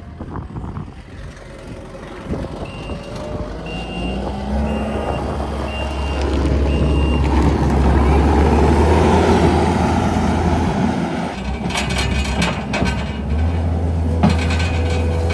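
Kubota SVL75-2 compact track loader's diesel engine running as the machine moves. Its backup alarm beeps about six times in the first half, the engine is loudest about eight seconds in as the loader passes close, and a run of knocks and rattles comes near the end.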